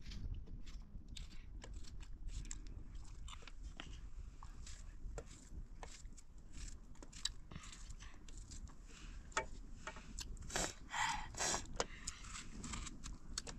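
Small knife cutting and peeling a ripe tomato by hand: scattered soft clicks and cutting sounds, with a short run of louder scraping noises near the end.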